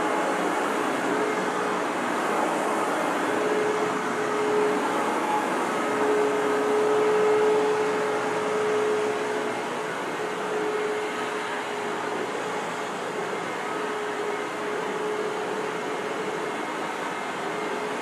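Hoover WindTunnel vacuum cleaner running steadily, a motor rush with a faint whine that swells a little around the middle and then eases off.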